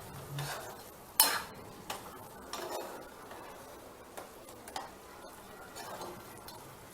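A spoon stirring the chicken and chopped green chillies in a cooking pan, with a few scattered scrapes and knocks against the pan, the loudest about a second in.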